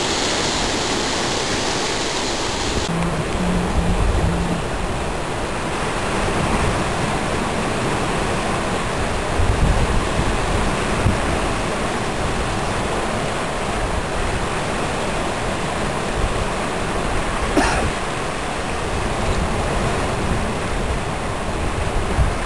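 Choppy sea waves washing steadily against a rocky shore, with occasional low rumbles of wind on the microphone.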